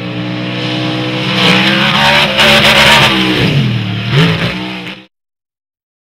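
BIGFOOT #18 monster truck's engine running hard as the truck accelerates over dirt, a loud steady engine note with a rush of noise over it. The pitch dips and climbs again about three and a half seconds in, and the sound cuts off suddenly about five seconds in.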